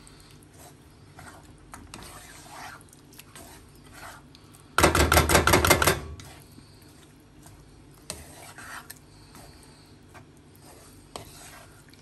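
Wooden spatula stirring and scraping wet lentils and masala in a non-stick frying pan, soft rubbing scrapes. About five seconds in comes a loud, rapid clatter of roughly ten knocks in just over a second.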